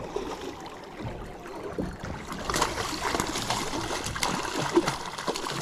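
A hooked salmon thrashing and splashing at the water's surface beside the boat. The splashing grows busier about halfway through, with one sharp splash near the end.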